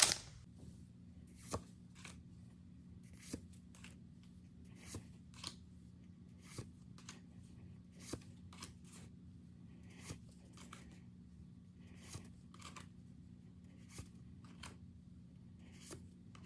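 Pokémon trading cards handled one at a time out of a freshly opened booster pack: a short papery flick or slide about once a second. A low steady hum sits underneath.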